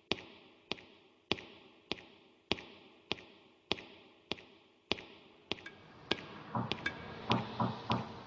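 Footstep sound effect in a song track: hard, echoing steps at an even walking pace, about one every 0.6 seconds. About six seconds in, low drum hits and pitched music join the steps.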